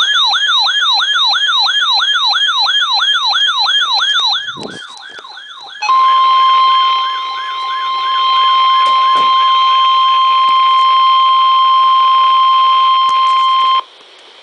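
Weather radio receiver's electronic alert siren warbling in fast falling sweeps, about four a second, for some four seconds. About six seconds in, the steady 1050 Hz NOAA Weather Radio alert tone starts, signalling an incoming alert broadcast; it holds for about eight seconds while the siren fades under it. The tone cuts off sharply near the end, leaving faint radio hiss.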